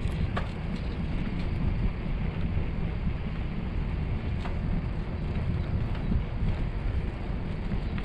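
Bicycle riding along an asphalt path: steady wind noise on the microphone over the rolling of the tyres, with a few light clicks, one about half a second in and one about four and a half seconds in.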